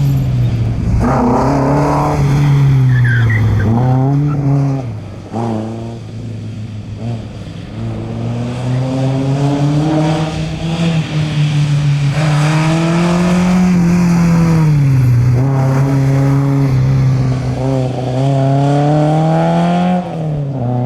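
Historic rally car's engine revving hard, its note rising and dropping again and again as the driver accelerates, shifts and lifts through a special stage.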